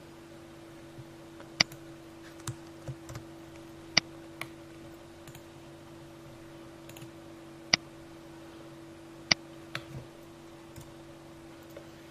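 Computer mouse and keyboard clicking: four sharp clicks a few seconds apart, with softer taps between them, over a steady low hum.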